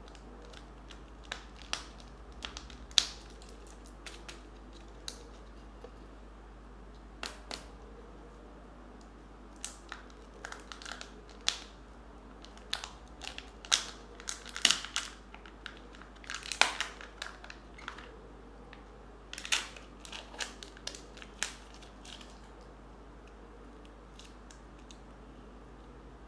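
A Kinder Joy egg being unwrapped by hand: the wrapper crinkles, crackles and tears in scattered bursts, thickest in the middle and dying away near the end. The plastic egg is then opened.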